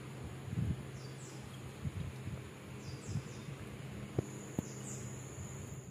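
Boiled potatoes set down on a plate with a few soft knocks, two sharper ones near the end, over a steady low hum and faint high chirps that repeat every second or so.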